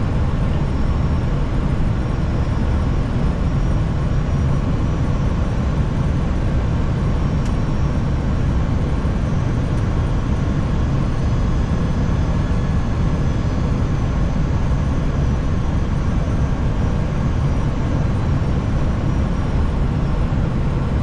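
Airbus A320 cockpit noise on final approach: a steady, low rushing of air and engine noise.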